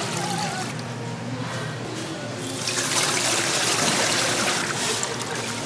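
Water running and splashing steadily, growing louder about halfway through.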